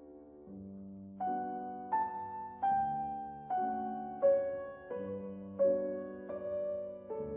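Background piano music: a slow, soft melody of single notes over sustained low chords, a new note about every three quarters of a second.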